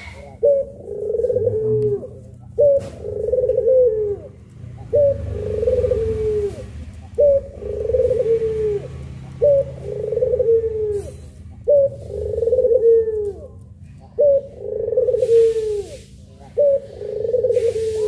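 Puter pelung, the long-calling Javanese variety of domestic collared dove (Barbary dove), cooing over and over: about eight calls, one every two seconds or so, each a short sharp note followed by a longer, wavering coo that falls in pitch.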